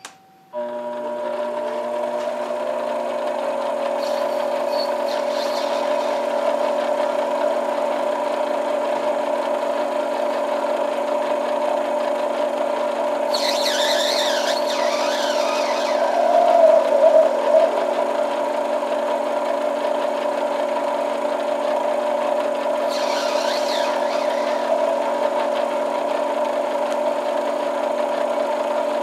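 Benchtop metal lathe switched on with a click, its motor spinning up within a couple of seconds and then running with a steady hum. The cutting tool turns down an acrylic pipe stem, adding two stretches of high, wavering cutting noise about 13 and 23 seconds in.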